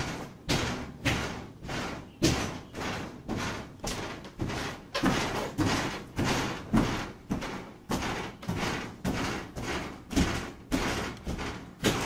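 Footsteps on bare wooden floorboards, an even walking pace of about two steps a second, each step a dull thud that fades out briefly.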